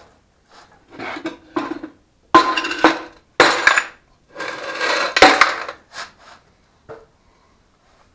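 Metal engine parts and tools clanking and scraping during a GM LS 6.2 short-block teardown: a run of irregular clattering bursts with some ringing metallic clinks, loudest in the middle.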